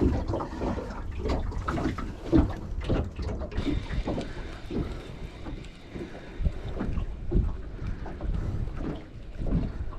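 Wind buffeting the microphone in uneven gusts, making a low rumble with soft irregular thumps.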